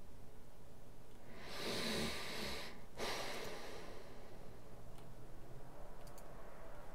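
A person breathing close to the microphone: a longer breath starting about one and a half seconds in, then a shorter one right after it, over a low steady hiss.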